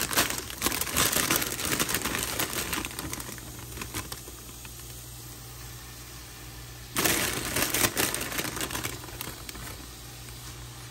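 Cooking-pan handling noises: two spells of clattering and rustling as ingredients are added and stirred in a frying pan, the first in the opening few seconds and the second about seven seconds in, over a steady low hum.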